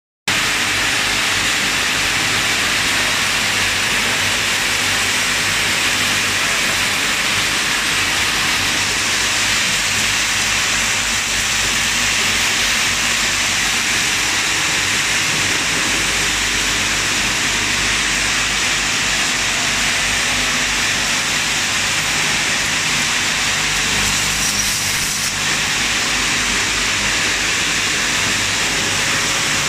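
Lotion pump assembly machine running, its vibratory bowl feeders shaking loose plastic pump parts along their tracks: a loud, steady rattle and hiss.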